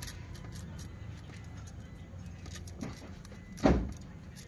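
Small metallic clicks and knocks of a steel seal-installer sleeve being worked on the crankshaft nose as the Tata 2.2 engine's front crankshaft oil seal is pressed home, with one heavier tap about three and a half seconds in.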